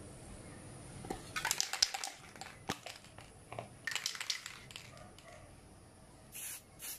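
Two clusters of rapid crackling clicks from handling. Then, near the end, two short hisses: an aerosol can of clear spray paint sprayed in quick bursts onto an electronic circuit board to coat it.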